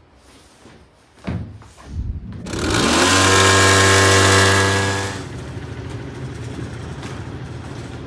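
Small motorbike engine revving up about two and a half seconds in, held at high revs for about two seconds, then dropping back to a quieter steady running, with a couple of knocks before the rev.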